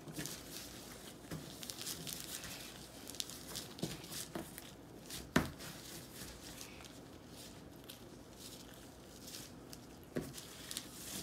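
Slime being stretched and pulled apart by hand: faint sticky crackling and tearing, with one sharp knock about five seconds in.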